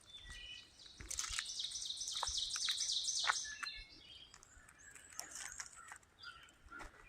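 Songbirds singing outdoors: about a second in, a fast, high trill of rapidly repeated notes runs for nearly three seconds, followed by fainter, lower calls.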